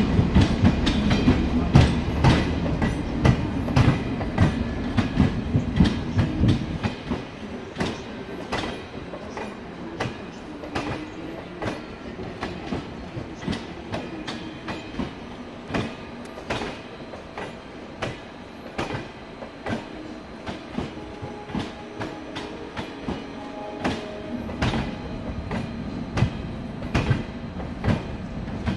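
Railjet passenger coaches rolling past, the wheels clicking over rail joints and points about once a second. A heavy low rumble is loud for the first six seconds or so, then drops away, leaving the clicks over a lighter rolling sound.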